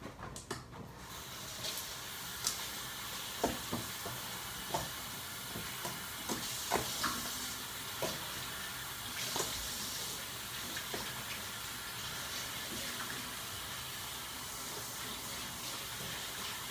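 Tap water running steadily into a sink, starting about a second in, with scattered splashes and small knocks as a face mask is washed off.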